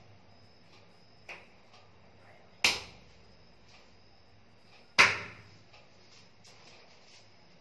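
Two loud, sharp smacks of a hand striking bare skin, about two and a half seconds apart, each dying away quickly, with a fainter click about a second in.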